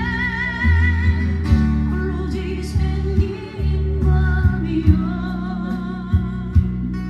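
A live singer sings a slow Korean ballad over guitar accompaniment, holding notes with a wavering vibrato above steady low bass notes.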